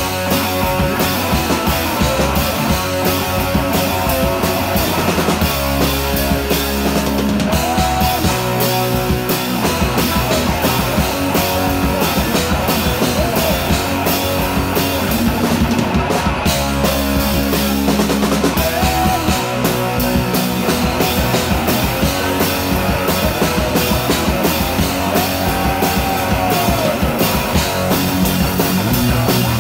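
Loud rock music with a drum kit and guitars playing a fast, steady beat.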